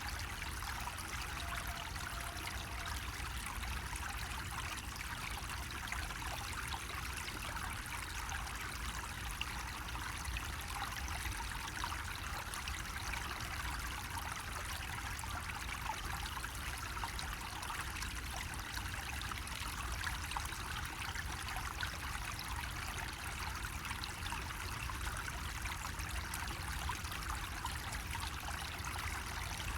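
Water from a bamboo spout running and splashing steadily, an even trickling with no breaks.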